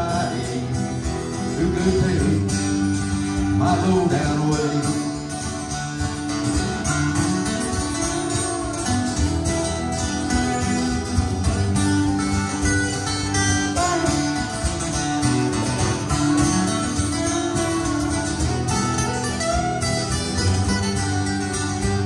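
Live acoustic country band playing: several acoustic guitars strumming under a harmonica, steady and unbroken.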